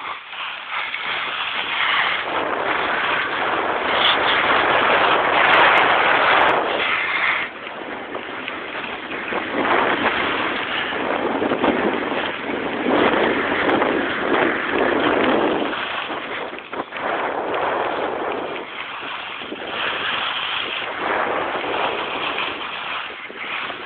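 Edges scraping and hissing over packed snow during a downhill run, mixed with wind rushing over the microphone. The noise swells and eases in long surges, loudest in the first third and the middle.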